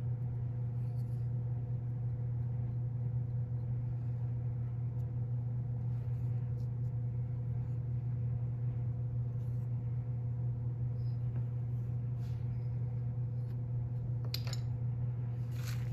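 A steady low electrical or appliance hum, with a few faint scrapes and taps of clay-working tools handled on a worktable, the clearest near the end.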